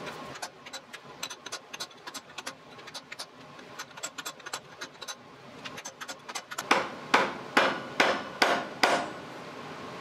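Hammer striking the steel cap end of a CAT 225 excavator's boom hydraulic cylinder, knocking the cap loose. A run of lighter taps, a few a second, is followed near the end by six much louder, evenly spaced blows.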